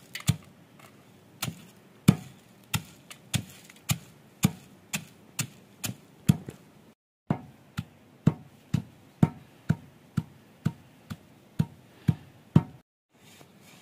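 A stone pestle pounding dried tomato pieces in a stone mortar, giving sharp, even knocks about twice a second. The pounding stops about a second before the end.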